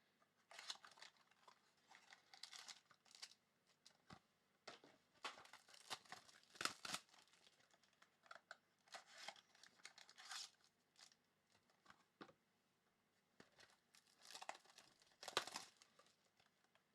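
Trading card pack wrappers being torn open and crinkled by hand: a string of short, faint tearing and rustling sounds.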